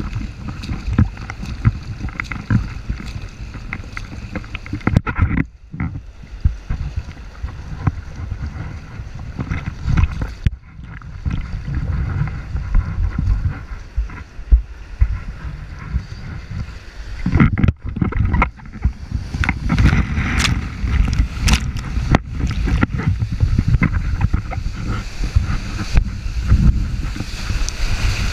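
Turbulent river whitewater churning and splashing right around an action camera's microphone, with water and wind buffeting the mic in constant crackles. The sound cuts out briefly three times and grows louder and busier in the second half as the rider reaches the breaking wave.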